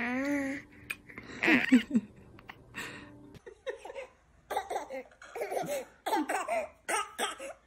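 Babies laughing: a drawn-out squeal at the start, then short bursts of laughter coming one after another.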